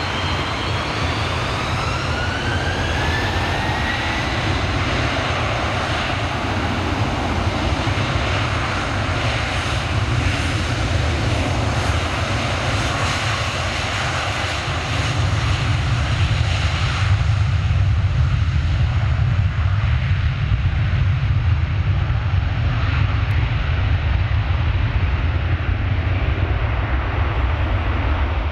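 Airbus A330 jet engines spooling up for takeoff, with rising whines over the first few seconds. Low, heavy engine noise then grows louder about halfway through as takeoff thrust builds during the roll.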